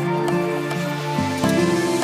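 Background music: sustained melodic notes that change every half second or so.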